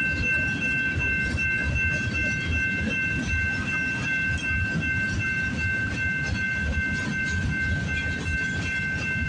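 Freight train cars rolling past as the train backs into a yard: a steady low rumble with irregular wheel knocks, and a steady high-pitched squeal held over it.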